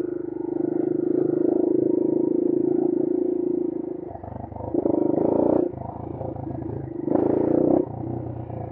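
Brozz 250 motorcycle engine under way at a steady pitch for about four seconds, then easing off and opening up again in two short, loud bursts of throttle, about five and seven seconds in.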